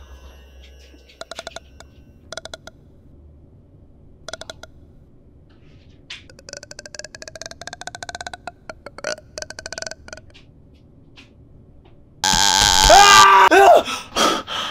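Horror-style sound effects: short buzzing, rattling bursts, each a rapid run of fine clicks, come every second or two, with a longer buzzing stretch in the middle. About twelve seconds in, a sudden, much louder shriek-like blast hits as the jump scare.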